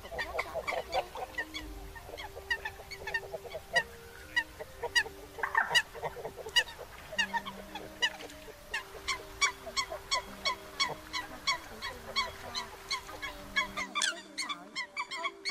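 A flock of Eurasian coots calling: many short, sharp, high notes several times a second, mixed with lower honking calls.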